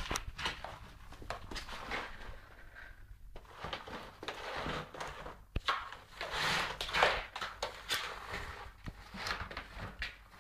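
Cardboard box scraping and knocking on a tile floor as a cat pushes into it and scrabbles with its paws, in irregular bursts of rustling with sharp clicks between them.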